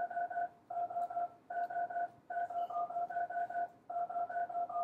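Computer-generated tune of pure electronic beeping tones: a higher tone steps back and forth among three pitches over a steady lower tone, in quick repeated beeps grouped into short phrases with brief pauses. Each of the three tones stands for a different hair cell along the basilar membrane being activated.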